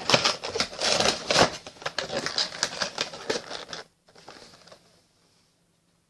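Packaging being handled, crinkling and rustling with many small clicks and crackles. It stops about four seconds in.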